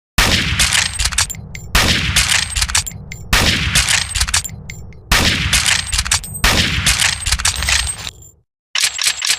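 Gewehr 98 bolt-action rifle (7.92×57mm Mauser) fired five times about a second and a half apart, each shot ringing out with a long echoing tail, with sharp metallic clicks among them. After a short gap near the end, a quick run of bolt clicks follows.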